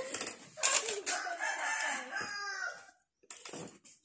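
A rooster crowing: one long call of about two seconds that drops in pitch at the end. A short clink, like a spoon against a metal bowl, follows near the end.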